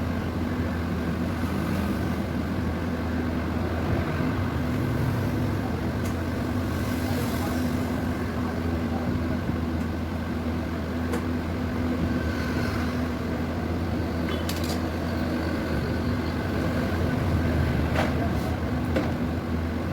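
Steady low mechanical hum, with a few sharp metallic clicks and taps about eleven, fourteen and eighteen seconds in, as the oil filter cover on a motorcycle engine is being unscrewed.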